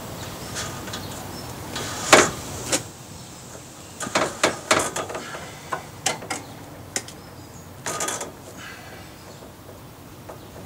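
Rope being pulled tight and tied off at a metal hook: a run of short, irregular rasps and creaks as the rope slides, the loudest about two seconds in.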